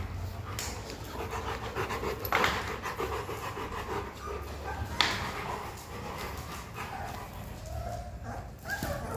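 Dogs panting, with two sharp knocks about two and a half and five seconds in.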